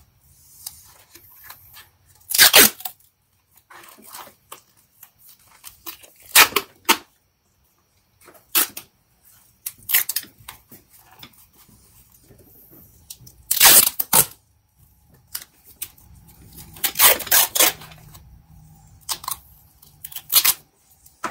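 Blue duct tape being ripped off the roll in a series of sharp, loud tears, about seven in all, the longest near the middle and again later on. Softer rustling of the tape being handled in between.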